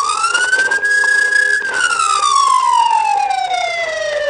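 Police car siren on wail: the pitch rises to its top about a second in, holds briefly, then falls slowly over about three seconds before starting to climb again at the end.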